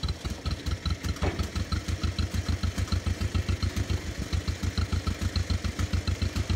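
Small John Deere crawler tractor's two-cylinder engine idling: a steady, even run of low beats, about seven a second.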